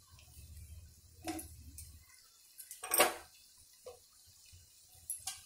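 A few short knocks and clinks of spoons against a frying pan and spice containers as salt and spices are added, the loudest about three seconds in, over a low hum that stops about two seconds in.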